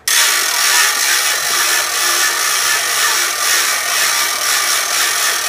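Loud, steady mechanical grinding and whirring that starts abruptly and then holds level.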